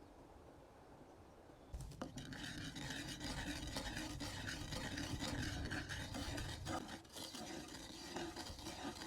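A utensil stirring and scraping in a cooking pot, a continuous scratchy rubbing with small clicks, starting about two seconds in.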